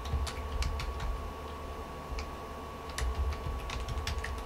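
Computer keyboard keys clicking irregularly as a password is typed, a few keystrokes near the start, a pause, then a quicker run near the end. Underneath is a steady low hum.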